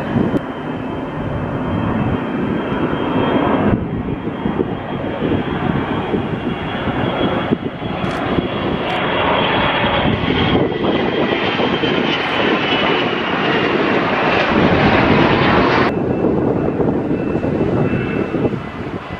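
Business jet's twin turbofan engines at takeoff power through the takeoff roll and lift-off: a loud steady rush of engine noise with a thin high whine. A little before the end it cuts to a duller jet-engine sound with less hiss.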